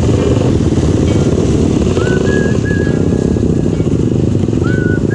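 Can-Am DS 450's single-cylinder four-stroke engine idling with the quad standing still, a steady rough low running sound. A few short whistled notes, some rising and some level, come in from about two seconds in.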